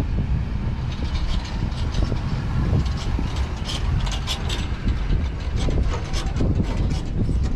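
Strong wind buffeting the microphone with a low rumble, while a quick run of sharp clicks and rattles sounds over it from about a second in until near the end.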